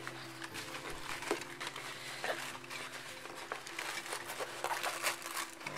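Light crinkling and rustling of a rolled diamond-painting canvas and its plastic protective film being unrolled by hand on bubble wrap, with scattered soft clicks and crackles.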